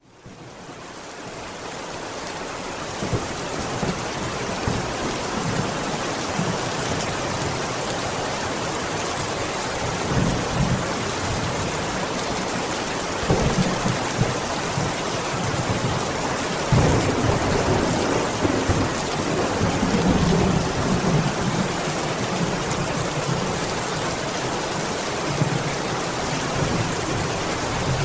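Heavy rain on a window, a steady hiss that fades in over the first couple of seconds. Rolling rumbles of thunder swell up several times, around the middle and later on.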